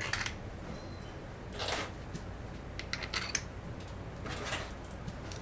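Loose steel screws clinking and rattling as they are picked up and handled: a handful of short metallic clicks and rattles, spaced a second or so apart.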